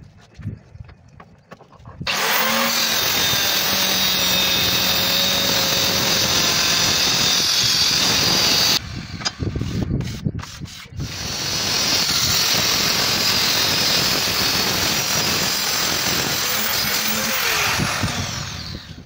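Handheld electric marble cutter slicing through marble slab in two cuts: a loud grinding whine that starts abruptly about two seconds in and stops suddenly near the middle, then a few knocks of stone pieces being handled, then a second cut that builds up and winds down with a falling whine near the end.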